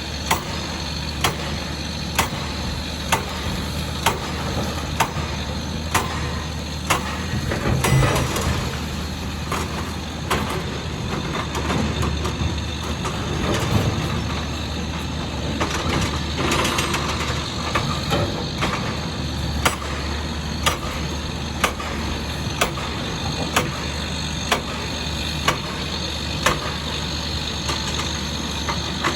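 Volvo EC460B excavator's diesel engine running steadily, with a sharp click about once a second throughout. The sound grows louder and rougher about eight seconds in and again from about thirteen to eighteen seconds in.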